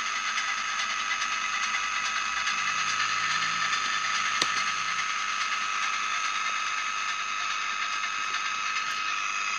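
The FM radio kit's loudspeaker puts out a steady rasping hiss with a high whistle running through it while its detector coils are turned. The receiver is not yet aligned to the transmitter, so no clean audio comes through. A single sharp click about four and a half seconds in.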